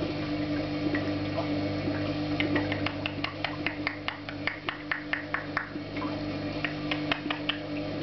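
African grey parrot making a rapid series of sharp clicks, about five a second, for around three seconds, then a few more clicks near the end, over a steady low hum.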